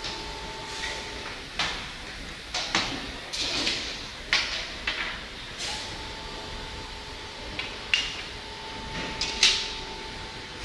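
Rotary polyurethane curing machine running: about a dozen irregularly spaced sharp clacks, some followed by a short hiss, over a steady high whine. The whine drops out about a second and a half in and returns near six seconds.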